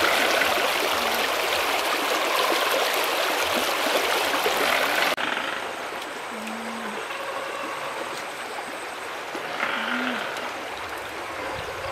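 Shallow stream rushing over rocks, loud for about the first five seconds, then cut off abruptly to a quieter, softer background of water with two brief faint calls.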